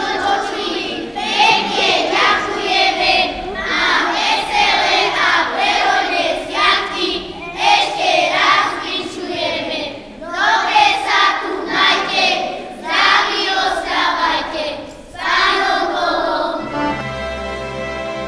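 A group of children singing a Christmas carol together, phrase after phrase with short pauses for breath. About a second and a half before the end it cuts to instrumental music with steady held notes.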